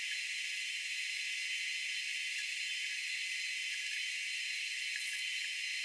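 Aerosol can of undercoating spraying in a steady hiss.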